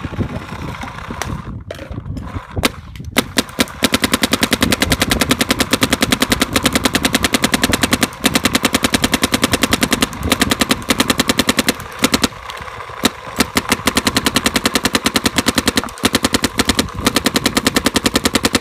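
Planet Eclipse Geo 2 electropneumatic paintball marker firing long strings of rapid, evenly spaced shots on compressed air, with brief breaks between strings. It opens with about a second of rattling as a pod of paintballs goes into the loader, and a few single shots before the rapid fire takes over.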